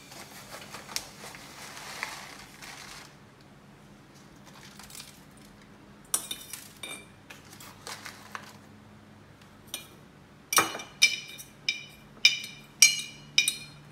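Metal teaspoon clinking against a glass jar as sugar is spooned in and spread. It starts with a soft scraping hiss and a few light ticks, then from about ten seconds in comes a quick run of sharp, ringing clinks, roughly two a second.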